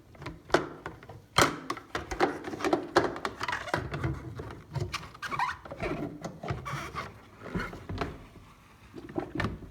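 Wire coat hanger clicking, tapping and scraping against the inside of a washing machine's spin tub in irregular strokes while fishing out a stuck cloth.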